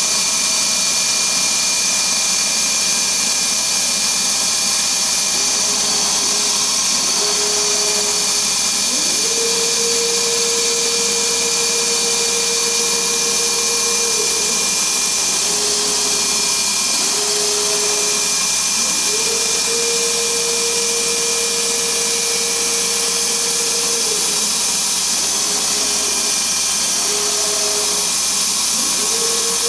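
Dongshin Drill Master 2007 machine running with a steady loud whirring hiss. Over it a tone steps up in pitch two or three times over a few seconds, holds, then drops away. This cycle repeats about every ten seconds.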